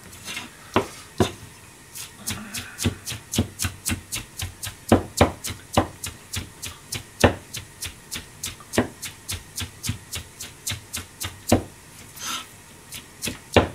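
Cleaver chopping meat and onion on a plastic cutting board: a fast, steady run of sharp knocks, about four a second, with some strikes louder than others and a brief let-up near the end.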